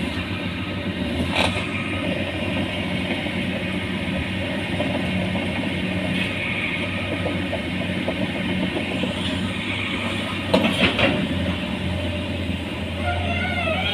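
Hitachi excavator's diesel engine running steadily, with a few short knocks about a second and a half in and again around eleven seconds.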